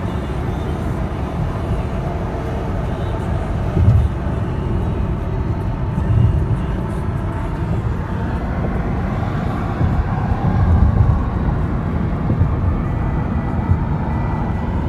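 Car cruising at highway speed, heard from inside the cabin: a steady low road and engine rumble, with a few louder low thumps.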